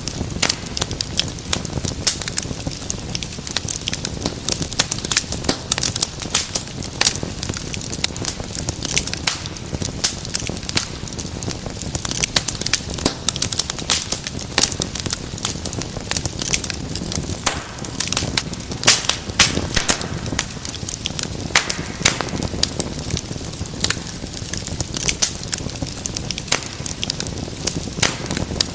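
Wood fire burning in a fireplace, crackling with dense, irregular sharp pops and snaps over a low, steady rumble of the flames.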